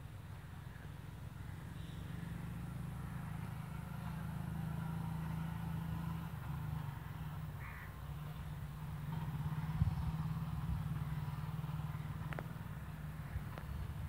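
Steady low hum of an engine running, with a few faint clicks near the end.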